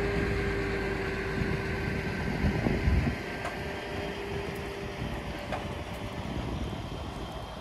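Truck-mounted hydraulic crane running, a steady mechanical hum with a held whine, with a brief louder low rumble about three seconds in.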